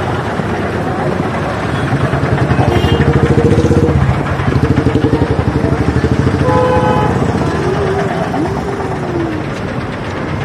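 Busy street traffic: motorcycle engines running close by, with a couple of short horn toots, about three seconds in and again near seven seconds.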